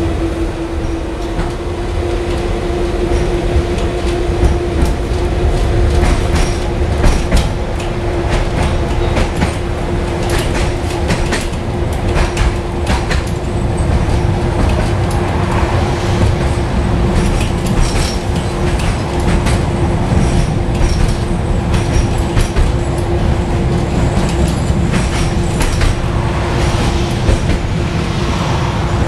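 Tatra T4D tram and B4D trailer running along the rails, heard from inside through the rear window: a steady rumble and hum with irregular clacks of the wheels over the track.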